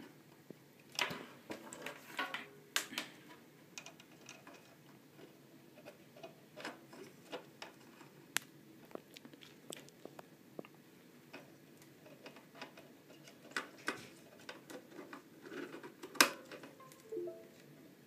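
Faint, scattered clicks and taps of handling as the Arduino board and its USB cable are plugged in and moved about, with a few sharper clicks; the loudest comes about 16 seconds in.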